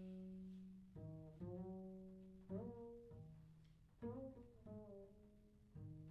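Saxophone playing a series of low notes, each starting with a sharp attack and then fading away, in a piece meant to evoke elephant cries.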